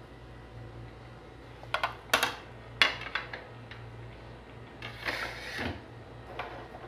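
Kitchen things being handled: a few sharp clicks and knocks, then a short scraping rustle, over a steady low hum.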